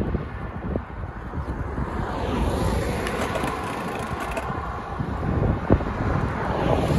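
Wind buffeting the microphone of a moving bicycle, with a car overtaking about two seconds in, its tyre noise swelling and then fading as it pulls ahead. A single sharp knock comes near the end.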